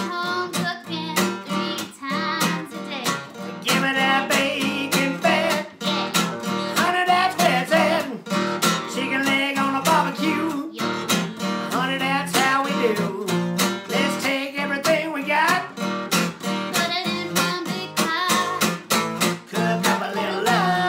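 Rhythm-and-blues duet: a Gibson acoustic guitar strummed in a steady rhythm while a man and a woman sing together.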